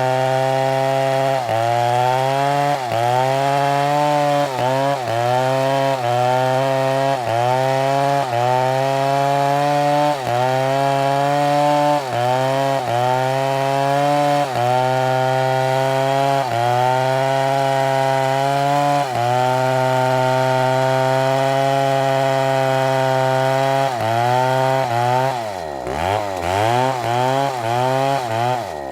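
Petrol chainsaw cutting wood at high revs, its pitch dipping briefly about every second as the chain bites and then recovering. Near the end the engine revs up and down several times and then drops away.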